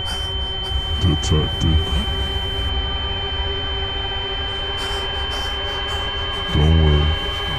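Horror-film sound design: a steady high-pitched ringing tone over a low rumbling drone. Short pitched sweeps come about a second in, and a louder, low, wavering sound comes near the end.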